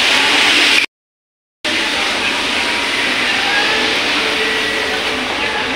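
Steady rushing background noise, broken by a short gap of total silence about a second in.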